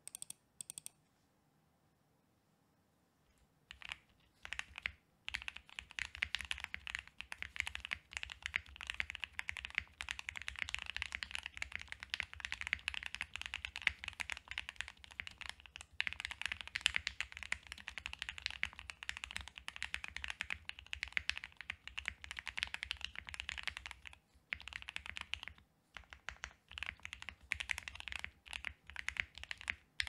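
Fast typing on an OwLab Jelly Evolv mechanical keyboard with an FR4 plate, full foam, broken-in lubed Gateron Ink Black V2 linear switches and GMK keycaps: a dense, continuous run of keystroke clacks that starts about three and a half seconds in and has two short pauses near the end. A few brief clicks come at the very start.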